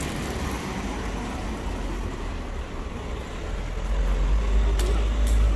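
City street traffic: a steady hum of car engines and road noise, with a low rumble that grows louder in the second half.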